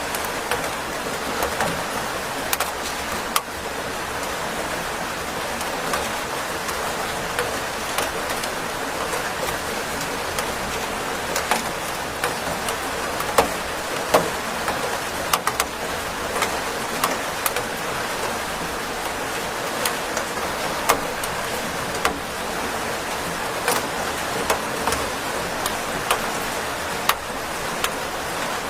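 Steady rain falling with a dense hiss, broken by frequent sharp ticks and taps of individual drops landing on a hard surface.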